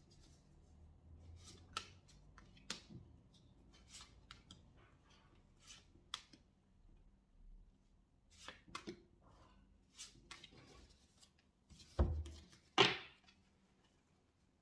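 Tarot cards being handled and laid out on a table: a run of soft slaps and clicks as cards are dealt and moved, with two louder knocks near the end.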